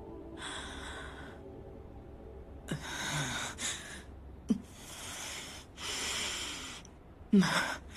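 A woman breathing heavily in and out, a series of long, loud breaths of someone upset and on the verge of tears, with a short voiced sound from her near the end.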